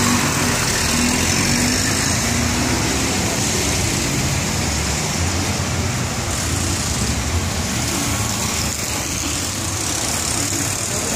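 Steady street traffic noise on a rain-wet road: vehicle engines running under a constant hiss.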